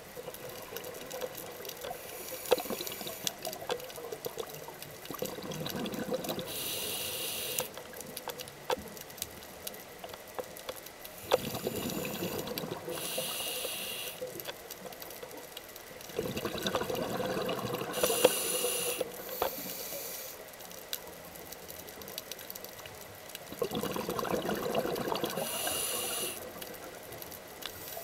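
Scuba diver breathing through a regulator underwater: about four breaths, roughly six seconds apart, each a rush of bubbles with a hiss.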